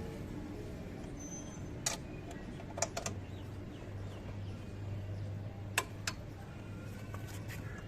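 Hand tools clinking on metal while a motorcycle's rear wheel is being taken off: a few scattered sharp clicks over a low steady hum.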